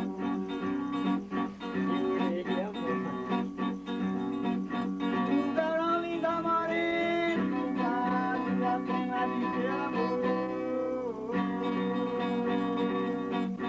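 A man singing a song to his own strummed acoustic guitar.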